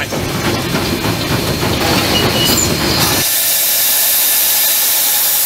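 Steam locomotive heard from the cab: a low, clattering running rumble for about three seconds, then a loud, steady hiss of escaping steam takes over as the rumble drops away.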